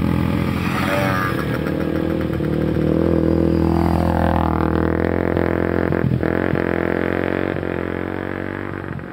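Dirt bike engines running: a steady engine drone, with a second engine's pitch falling and then rising about four seconds in, and a single sharp knock about six seconds in.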